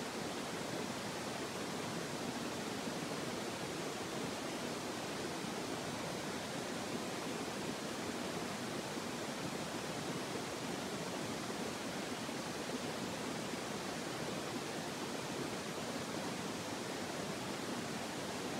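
Steady, even rushing noise with no tones, rhythm or breaks.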